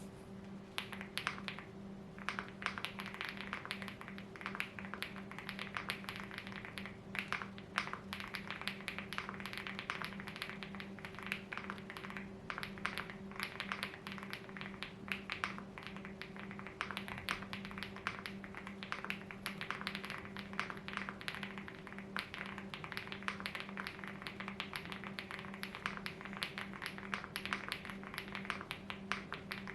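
Mechanical keyboard being typed on: an Mchose GX87 tenkeyless board with KTT Kang Grey switches lubed with Krytox 205G0, a fast, continuous patter of keystrokes starting about a second in. A steady low background hum runs underneath.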